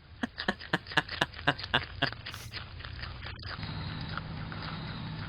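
Groundhog chewing food right at a security camera's microphone: quick crunches about four a second, then a steady low hum and hiss from about three and a half seconds in.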